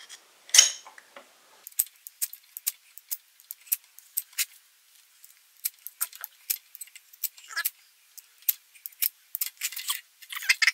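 Knife spine scraped hard down a ferrocerium rod, striking sparks onto fatwood shavings: short, sharp metallic scrapes, two or three a second and irregular, bunching faster near the end.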